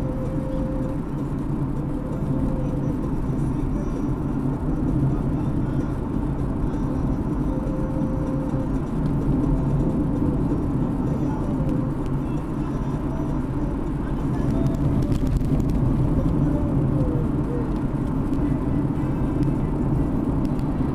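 Steady engine and tyre noise of a car driving along a paved road, heard from inside the car.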